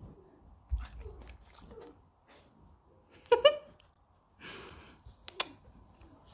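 Mini pig nuzzling and mouthing at close range: soft snuffling, smacking and clicking from its snout and mouth. A short high squeak about three seconds in, followed by a breathy rush of air.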